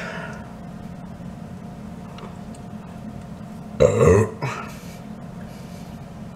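A man's burp, loud and short, about four seconds in, brought up by a carbonated drink.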